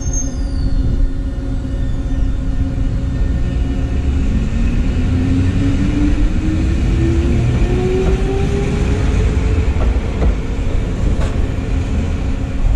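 Eizan Railway 'Hiei' sightseeing railcar pulling away and accelerating past, a low rumble of wheels on rail under a motor whine that rises steadily in pitch for several seconds.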